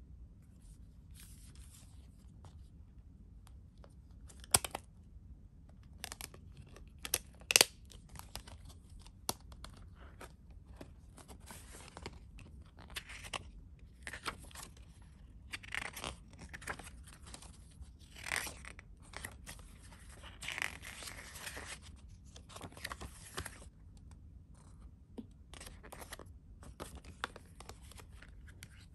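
Hands handling cardboard CD sleeves: cardboard sliding, rubbing and rustling in short strokes, with a few sharp taps or clicks, the loudest about four and a half and seven and a half seconds in.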